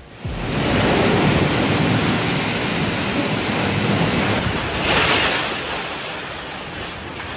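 Storm wind and surf: a loud, steady rushing noise with wind buffeting the microphone, and a surge about 5 seconds in.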